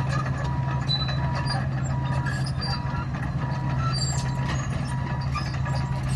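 Komatsu D61 bulldozer's diesel engine running steadily, with its reversing alarm beeping evenly about one and a half times a second. Scattered clicks and knocks sound over the top.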